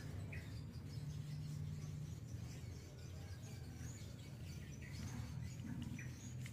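Scattered short, high bird chirps, a few seconds apart, over a low steady hum.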